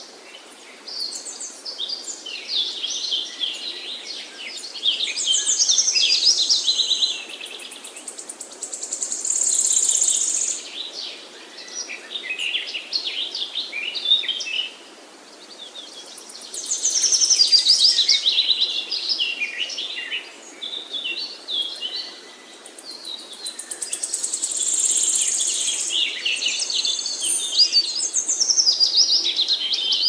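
Birds chirping and trilling in many overlapping high-pitched calls, swelling and fading in several louder stretches over a faint steady background hiss.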